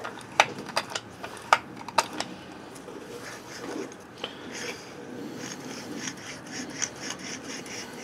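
Ford F-250 automatic locking front hub, freshly lubricated, being turned by hand. It gives a few sharp metal clicks in the first two seconds, then a fast, even ratcheting of about four ticks a second as its geared inner parts rotate.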